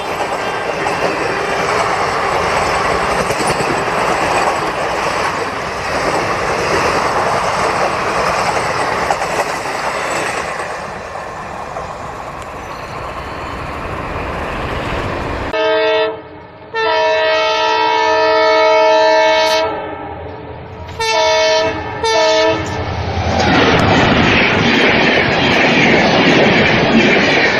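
Indian Railways express train running past with steady wheel-on-rail noise. About halfway through, after an abrupt change, a locomotive horn sounds a short blast, one long blast of about three seconds, then two short toots, and the train's running noise returns near the end.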